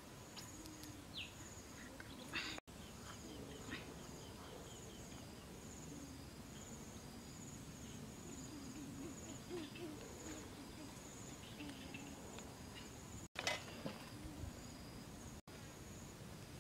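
An insect chirping steadily in high-pitched pulses about twice a second, over quiet outdoor background. A few brief rustles and knocks come from handling the fish and bamboo skewers, and the sound cuts out for an instant three times.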